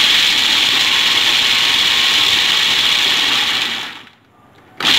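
Kenwood food processor running in pulses, its blade coarsely chopping fried almonds: one run of about four seconds that winds down, then after a short pause a second burst starts near the end.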